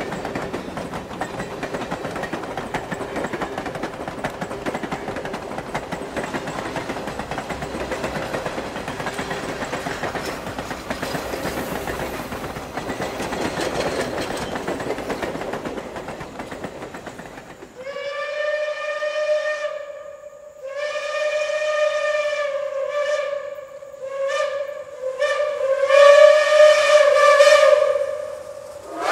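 Passenger cars rolling past on the rails with a steady rumble and wheel clatter, then, about two-thirds of the way in, the steam whistle of Reading T-1 4-8-4 No. 2102 sounding several loud blasts, the last ones the longest and loudest.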